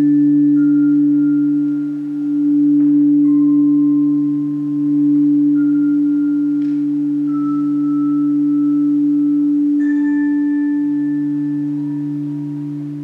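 A singing bowl sounding as a steady, wavering drone with a low hum beneath it, while single high chime-like notes ring out one after another and slowly fade.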